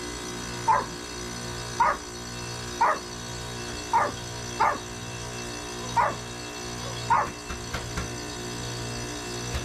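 A dog barking repeatedly, seven short barks roughly a second apart, over the steady hum of a Carrier 25HBR 1.5-ton heat pump outdoor unit running.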